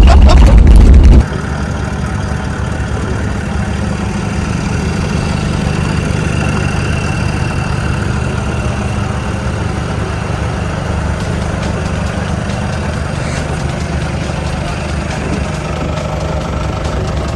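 A loud low rumble that cuts off about a second in, then an engine running steadily at idle.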